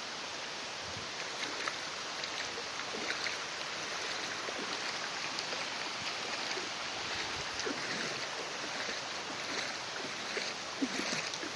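Steady rushing of muddy floodwater running across a road, with small splashes throughout.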